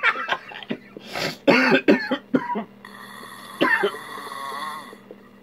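A man snoring hard in his sleep, the breaths coming as irregular, sputtering, cough-like snorts with uneven gaps between them.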